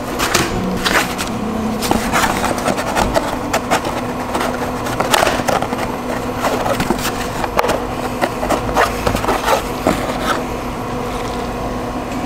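A foam takeout clamshell being handled and pressed shut, with many small scrapes, creaks and clicks of the foam and metal tongs against it and the counter. A steady hum of cafe equipment runs underneath.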